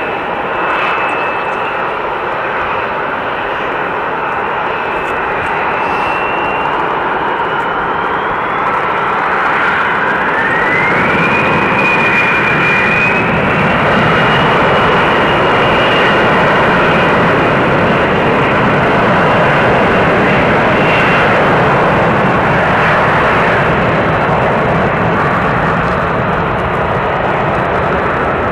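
Jet airliner engines running with a broad rush of noise and a thin high whine. About ten seconds in the whine rises and then holds steady as the sound grows louder: the engines spooling up.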